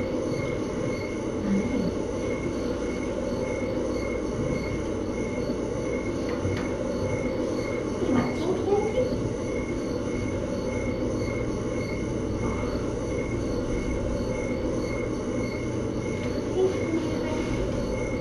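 Steady low rumbling room noise, with a faint high pip repeating at a regular beat throughout.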